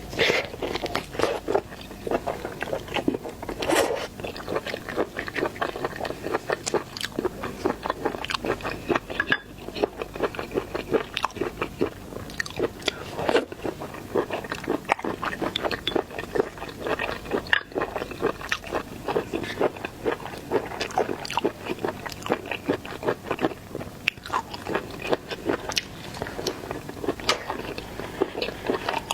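Close-miked eating of seafood: a rapid, continuous run of crunches, cracks and chewing as shellfish is bitten into.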